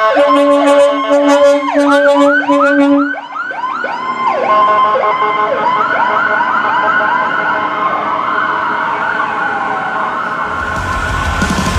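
Several fire trucks' sirens sounding together and overlapping: fast rising-and-falling yelp sweeps and slower wails, with a steady low tone over the first three seconds. Loud rock music comes in near the end.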